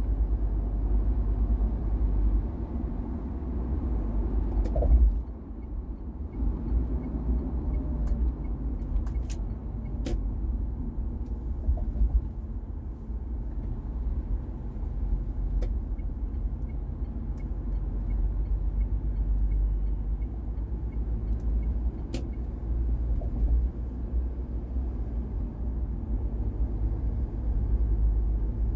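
Steady low rumble of a car driving at road speed, with a few brief sharp clicks along the way.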